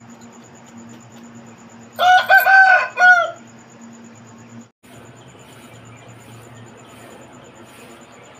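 A rooster crows once, about two seconds in: a loud call of about a second and a half that ends on a falling note.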